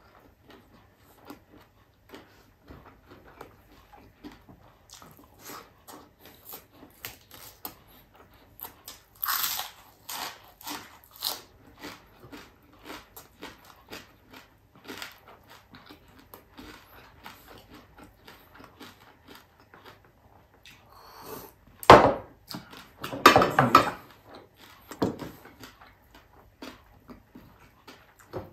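Close mouth sounds of a man eating rice, boiled vegetables and crispy fried scad (galunggong) by hand: steady chewing and smacking with short crunches. It gets louder in bouts about a third of the way in and again about three-quarters in.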